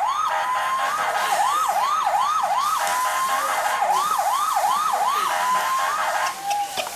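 Electronic siren sound effect from a children's toy car: runs of quick rising whoops, about three a second, broken by short held tones, stopping about six seconds in.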